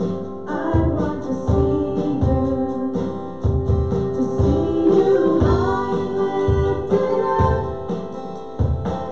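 Worship song: singing over a band, with a steady low beat about once a second.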